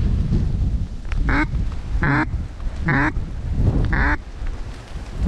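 A hunter's mouth-made duck quacks, voiced without a call, used to bring in a passing duck: four loud, drawn-out quacks about a second apart, each falling in pitch. Steady wind rumble runs under them.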